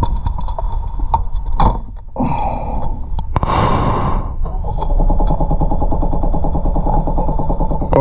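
A 2006 Peugeot Partner van's engine being cranked by its starter, a fast, even chugging from about halfway in, after a few knocks and handling noises.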